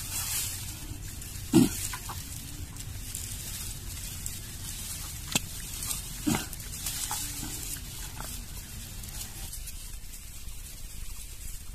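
Hands squelching and churning through thick wet mud while feeling for an eel in its burrow, with a sharp wet squelch about one and a half seconds in and two smaller ones around six seconds in.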